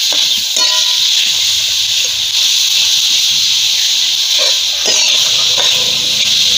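Chopped green chillies hissing and sizzling as they roast in a dry kadhai, with a spatula scraping and stirring them against the pan in short, repeated strokes.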